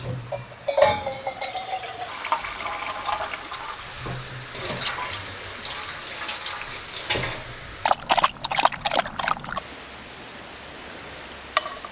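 Water running from a tap into a metal pan, with clanks and short squeaks as the tap and pan are handled at the start. There are a few sharp metal clinks near the end.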